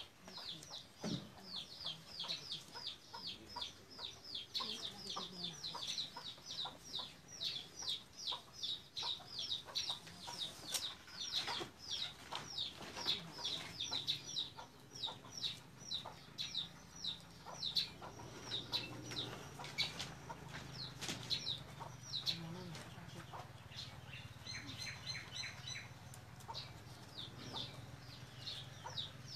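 Birds peeping, a fast steady run of short high falling chirps, about four a second. Scattered sharp clicks of bamboo strips knocking together as they are woven.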